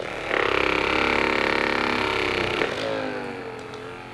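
RecoverFun T5 percussion massage gun motor running at its fourth speed, a steady motor hum with rapid pulsing strokes. About three seconds in, its pitch slides down and it gets quieter as the motor slows, as in a stall-force test of the gun pressed into muscle.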